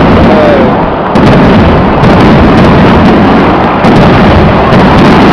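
Aerial firework shells bursting one after another, loud booms running together into a near-continuous rumble, with fresh blasts about a second in and again near four seconds.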